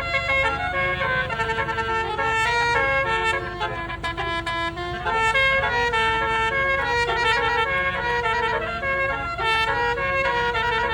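Multi-tone 'telolet' air horn on a tour bus playing a trumpet-like melody, the notes stepping up and down without a break, over a steady low rumble of the bus.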